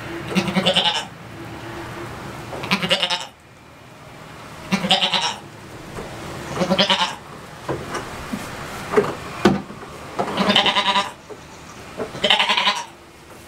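Goat bleating over and over, about six wavering calls roughly two seconds apart.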